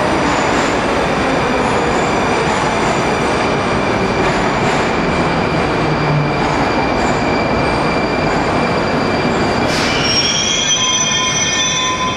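Moscow Metro train running through the station, a loud steady rumble of wheels on rails with a high whining squeal. About ten seconds in, several higher squealing tones from the wheels come in.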